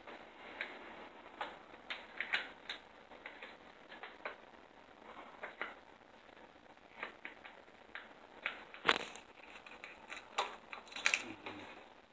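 Irregular light clicks and taps from hand work on an aluminum door track, with one sharper knock about nine seconds in.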